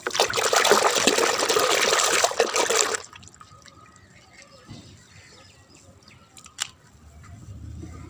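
Water sloshing as a hand swishes through a bucket of soapy water to wash plastic toys, loud for about three seconds; then it goes much quieter, with a single sharp click a little over six seconds in.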